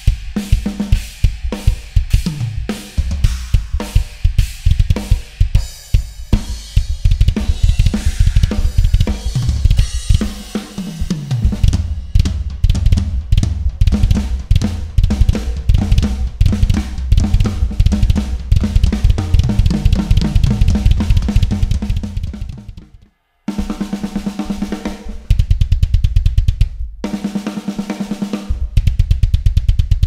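Close-miked Tama Starclassic Bubinga drum kit with a Pearl Sensitone brass snare and Zildjian cymbals, played hard and fast: rapid bass drum strokes under snare and cymbal hits, with tom fills running down the kit. The playing cuts off abruptly about 23 seconds in, then starts again in runs with short breaks.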